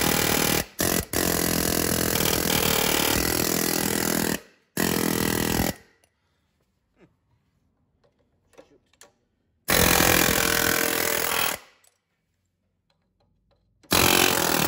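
Pneumatic air chisel (air hammer) hammering against a pressure washer pump seized onto the engine's shaft. It stops and starts in bursts of one to three seconds, with a quiet gap of several seconds in the middle.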